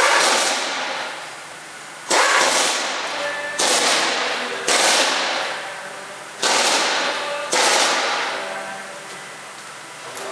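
Six sudden loud bursts of noise, one to two seconds apart, each starting sharply and fading out over about a second.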